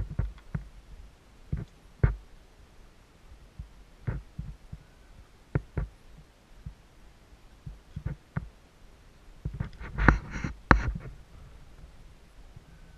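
Irregular thumps and knocks, about one every second or two, from riders handling stopped dirt bikes, with no engine running. A louder cluster of thumps and scuffs comes about ten seconds in.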